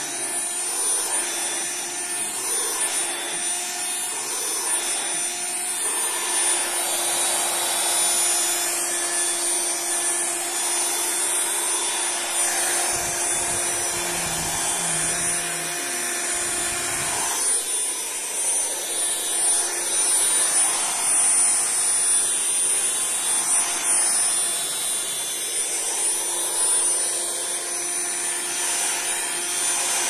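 Dirt Devil Ultra handheld vacuum cleaner running steadily with a high motor whine as its nozzle is worked over cloth upholstery, the suction hiss shifting as it moves. A few low bumps come halfway through.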